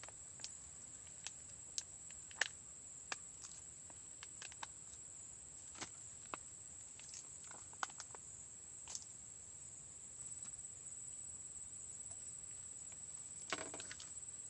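A steady high-pitched insect drone with scattered small clicks and rustles, and a short cluster of knocks near the end.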